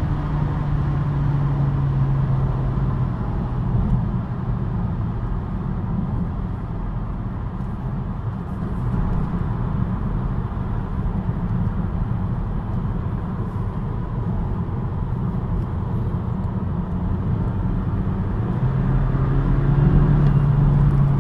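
BMW 116i running, with a steady low hum that drops away after about three seconds and comes back near the end.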